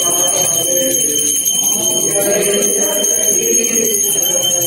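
Puja hand bell ringing continuously, with voices singing over it.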